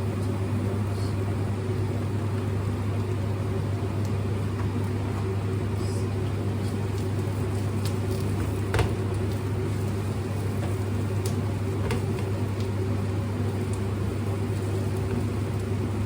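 A steady low motor hum, with a few faint clicks and one sharper click about nine seconds in.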